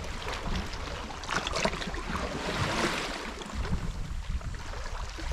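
Small waves washing against a rocky shore, with gusty wind rumbling on the microphone; one wash swells up about halfway through.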